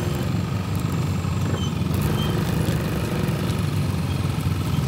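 Motorcycle engine running steadily at low speed, a continuous low hum.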